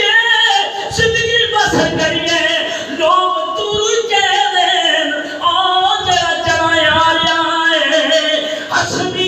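A man's voice chanting unaccompanied in long, melodic, drawn-out phrases: devotional Islamic recitation.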